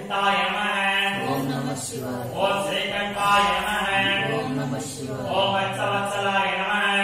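Puja mantras chanted aloud in a Shiva temple, sung in long held phrases with short breaths between them.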